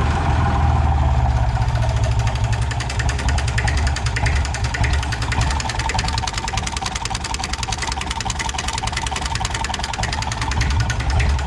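IMT 533 tractor's three-cylinder diesel engine running steadily, with an even, rapid firing knock.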